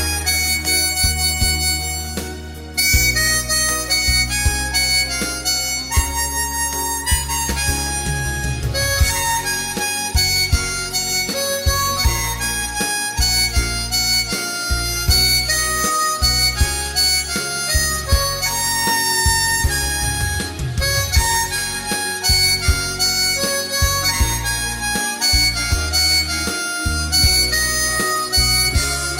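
Harmonica playing the melody of a Korean pop ballad over a backing track with a strong bass line and a steady beat.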